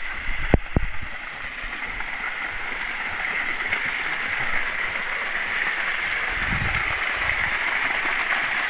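Waterfall water pouring down in a steady rush. Two sharp knocks sound about half a second in.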